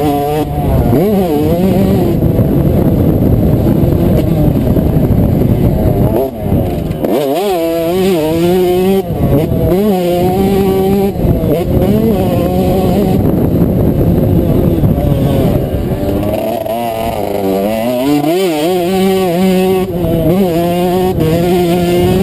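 Yamaha 125cc two-stroke motocross bike engine at full race pace, its pitch climbing in repeated sweeps and falling back as the rider works the throttle and shifts gears, with wind buffeting the helmet-mounted microphone.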